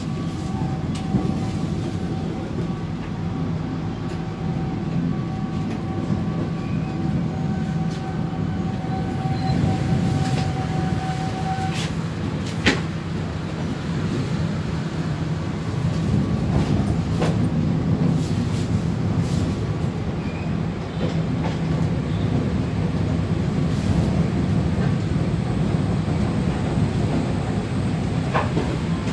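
Passenger train coaches rolling slowly over the rails with a steady low rumble and scattered sharp clicks from the wheels. A thin steady high tone runs through the first twelve seconds or so and then stops.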